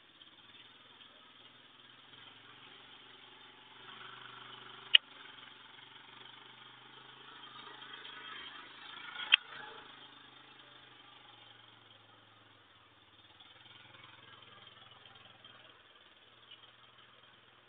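Two sharp clicks or knocks about four seconds apart, the first about five seconds in, over a faint steady low hum and hiss.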